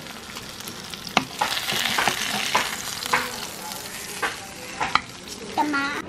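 Amur fish sizzling as it fries in oil in a pan, with a few sharp clicks and scrapes of a spatula against the pan as the pieces are turned and lifted out.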